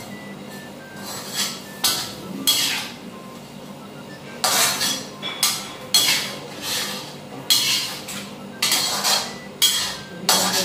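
Metal spatula and ladle scraping and clinking against a metal wok as chicken and spices are stirred together. The strokes come in irregular bursts, sparse at first and more frequent from about halfway through.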